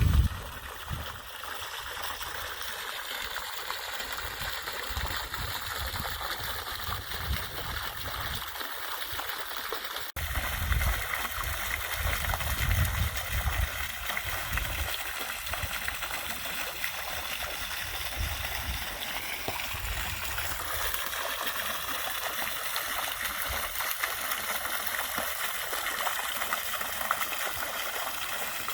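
A dense chorus of many frogs calling together, blending into a steady shimmering wash, with an uneven low rumble underneath. It breaks off for an instant about ten seconds in and carries straight on.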